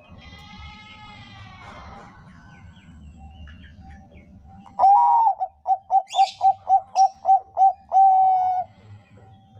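Zebra dove (Bangkok perkutut) cooing its song: fainter calls in the first two seconds, then about halfway in a loud phrase of one long coo, a quick run of about ten short pulsed coos, and a final drawn-out coo.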